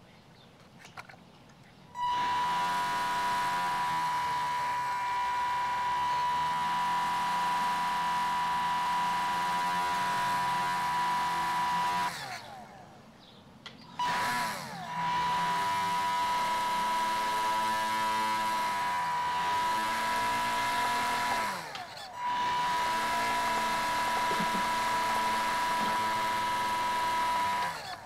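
Small electric motor of an RC model driving its propeller, running with a steady high whine while its pitch rises and falls as the throttle changes. It cuts out for about two seconds partway through, starts again, and later drops out briefly once more.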